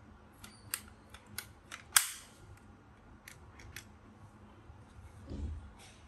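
A run of short, sharp clicks and taps from handling tools, with one loud snap about two seconds in and a soft, low thump near the end.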